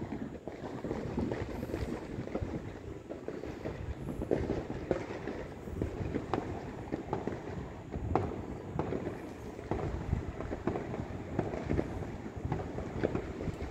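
Many distant fireworks going off at once: a dense, unbroken patter of pops and bangs over a low rumble, with a few louder bangs scattered through.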